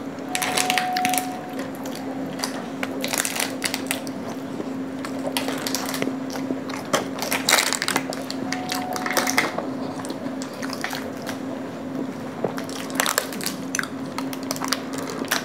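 Close-up eating sounds: soft cream pastry being bitten, squished and chewed, with crinkling of a plastic pastry wrapper and light clicks of spoon and fork. A steady low hum runs underneath.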